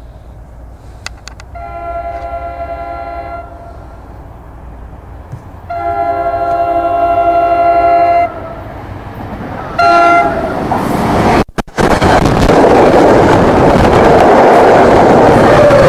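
NJ Transit commuter train's locomotive horn, a chord of several tones, sounding two long blasts and then a short one as the train approaches: the start of the standard level-crossing signal. The train then passes close by with a loud, steady noise of wheels on rail.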